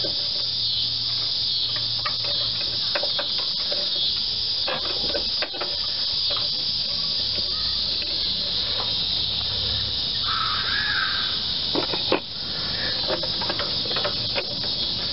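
Steady high-pitched chorus of insects, with scattered small clicks and scrapes of pliers and a spring clamp being worked onto a rubber fuel hose.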